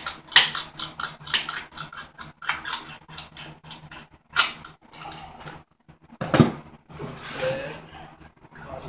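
Ratchet wrench turning a bolt on a Honda XR50 frame, its pawl clicking in quick strokes about three a second, then a single metallic clank about six seconds in.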